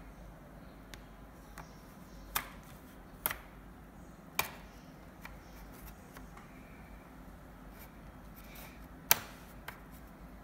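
Plastic card worked along the seam of an Acer Aspire E5-573G laptop's plastic case, with a handful of sharp clicks as the case's snap clips pop loose; the loudest click comes near the end.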